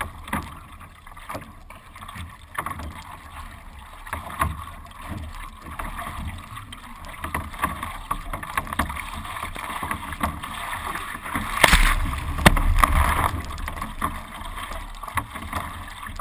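Water slapping and sloshing against a surf ski's hull under paddle strokes, heard through a deck-mounted camera, with irregular knocks and splashes. A louder rush of splashing comes about twelve seconds in.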